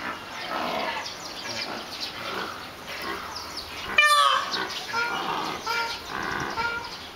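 Birds calling in an aviary of white peafowl. One loud, sharp call with a falling pitch comes about four seconds in, followed by a run of short repeated calls.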